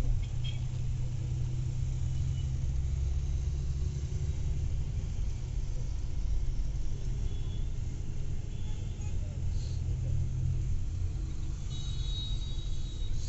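Low, steady rumble of a moving vehicle's engine and road noise, heard from inside the vehicle. A high-pitched tone sounds for about a second and a half near the end.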